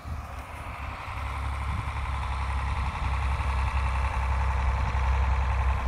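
John Deere 4020 tractor engine running steadily as it pulls a three-bottom plow through the field, growing gradually louder.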